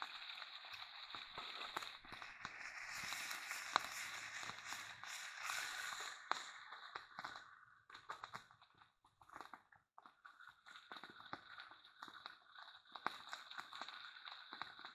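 Smallmouth bass fillets frying in coconut oil in a pan on a small wood-burning stove: a steady sizzle with many small pops and crackles. The sizzle dies away for about two seconds a little past the middle, then comes back.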